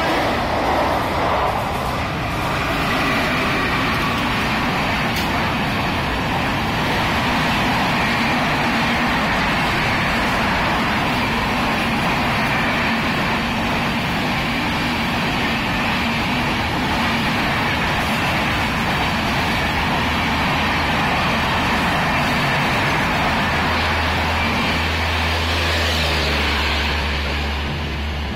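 Express passenger train, hauled by a WAP-4 electric locomotive, passing at speed: a loud, steady rush and clatter of wheels and coaches on the track. It eases slightly near the end, as a low steady hum comes in.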